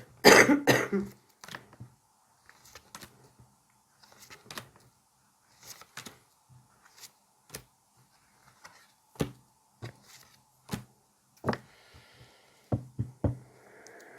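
A single loud cough about a second in, followed by scattered light clicks and taps of tarot cards being handled and laid on a table.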